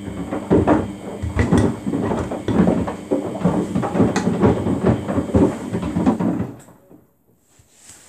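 Samsung WF80F5E0W4W front-loading washing machine tumbling its drum with water, the loose plastic detergent drawer inside knocking and clattering irregularly against the drum. The tumbling stops suddenly near the end.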